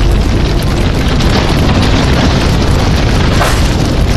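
Loud, steady booming and rumbling sound effects laid over background music, heavy in the bass.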